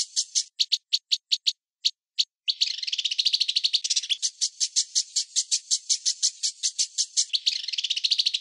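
Rapid, high-pitched chirping, about seven chirps a second. About half a second in, it thins to a few spaced chirps, then runs dense again from about two and a half seconds on.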